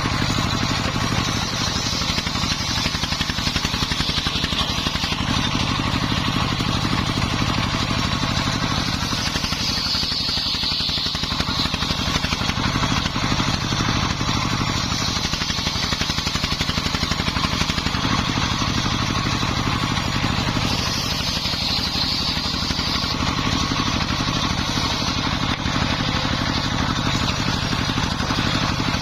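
Single-cylinder Dongfeng 24 hp diesel engine running steadily under load, driving a homemade circular saw that is ripping timber. A higher hiss from the blade in the wood swells twice, about ten seconds in and again near twenty-two seconds.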